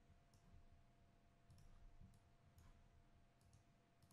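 Faint computer mouse clicks, about five in four seconds, two of them quick double clicks, over near-silent room tone with a low hum.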